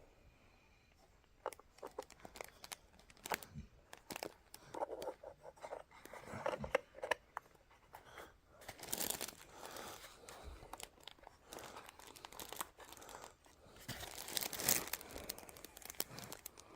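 Plastic packaging crinkling and rustling as it is handled, with scattered small clicks and taps; the crinkling comes in stretches, louder about nine seconds in and again near the end.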